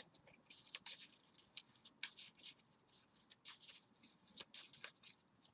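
Yu-Gi-Oh! trading cards being flipped through by hand while a deck is searched for a card: faint, quick, scratchy swishes of card sliding on card, with a couple of soft clicks.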